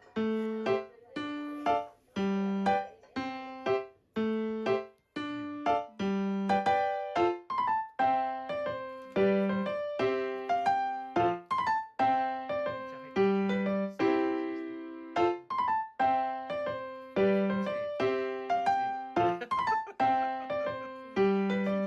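Background music: a light piano or electric-piano tune played as a series of plucked-sounding notes, several a second, each fading quickly.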